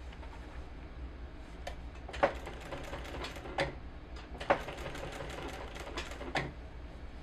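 Sewing machine stitching in two short runs, the second starting about four seconds in, each a rapid even clatter with a few sharper clacks.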